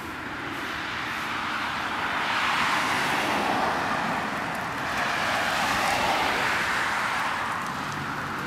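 Cars passing on a street: tyre and road noise swelling to a peak about three seconds in, easing, then swelling again about six seconds in.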